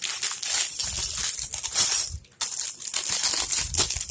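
Plastic Lego parts bag crinkling loudly as it is handled, a dense rustle with a short break a little past halfway.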